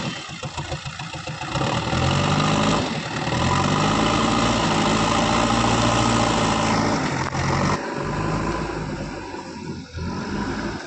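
Diesel engine of an earthmoving machine working: it revs up about two seconds in, holds a steady high note under load for several seconds, then drops back and fades toward the end.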